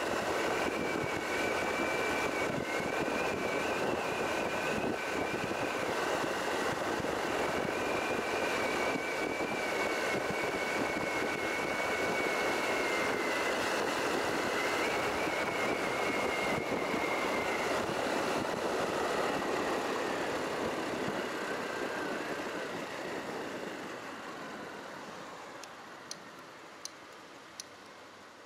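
Honda Cross Cub 110's single-cylinder four-stroke engine running under way, with steady wind and road noise and a wavering whine. The sound dies down over the last several seconds as the bike slows, and a few light ticks come near the end.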